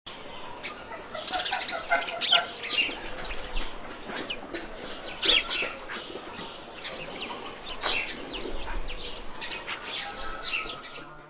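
A flock of farmed birds chirping and calling in many short, high notes, with bouts of wing flapping.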